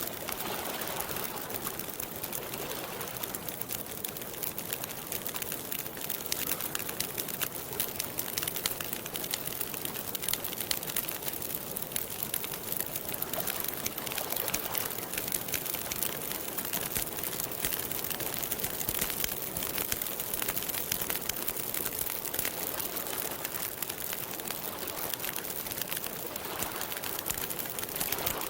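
Campfire crackling steadily, with many small pops and snaps.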